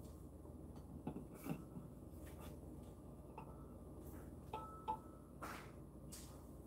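A silicone ladle stirring thick porridge in a stainless steel pot, with a few faint, scattered knocks of the ladle against the pot, two of them ringing briefly about halfway through.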